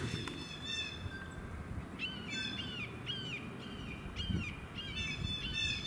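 Birds calling: a run of short, arched calls repeating about twice a second from about two seconds in, over a low, steady rumble of background noise.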